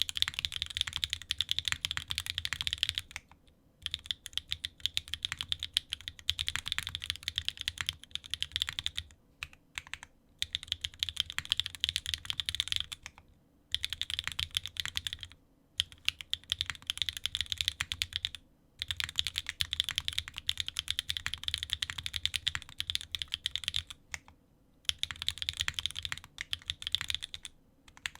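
Typing on a Frog mini mechanical keyboard with Swagkey x Gateron Modern Gray switches, stock lubricated, in an aluminium plate with no foam, under GMK Dots R2 keycaps. Fast runs of key presses lasting two or three seconds each, broken by short pauses.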